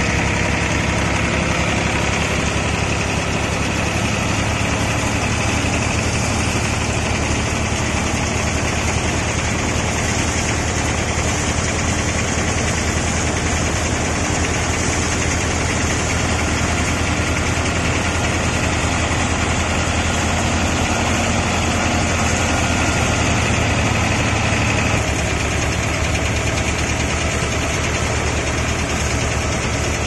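Tractor-driven grain thresher running steadily: the diesel tractor engine drives the threshing drum and fan while straw is fed through and blown out. A loud, continuous mechanical din with a low engine hum underneath, easing slightly about 25 seconds in.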